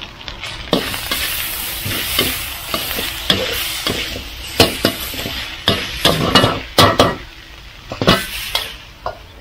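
Stir-frying in a wok: food sizzling while a spatula stirs and scrapes, with repeated sharp clacks of the spatula striking the wok, most frequent in the second half.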